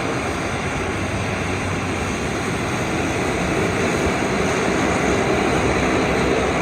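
Jet airliner engines heard from an airport observation deck, a steady rushing noise with a faint whine, growing a little louder in the second half.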